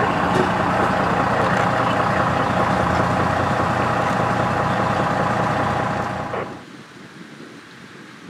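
A large vehicle engine idling steadily, which cuts off abruptly about six and a half seconds in, leaving a fainter rushing noise.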